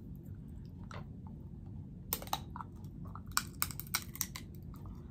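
Sharp clicks and cracks of a snow crab leg shell being picked with a fork and bitten open, scattered at first and coming thick and fast from about two seconds in, over a low steady hum.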